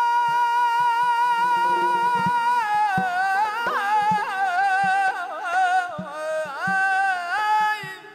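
Male mugham singer holding a long, loud high note, then descending through rapid trilled vocal ornaments before breaking off just before the end. Light hand-drum taps sound underneath.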